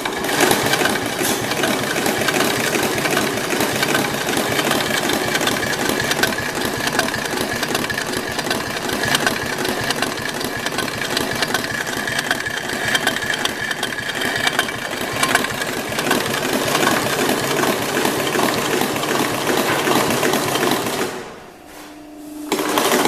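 Adler 166 heavy-duty flatbed industrial sewing machine running at a steady speed, a fast, even mechanical clatter of needle bar and large barrel hook. It stops about 21 seconds in, followed by a short mechanical sound near the end.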